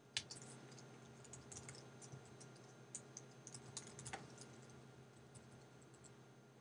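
Faint typing on a computer keyboard: a sharper keystroke at the start, then scattered clusters of quick key presses over the next four seconds, thinning out near the end.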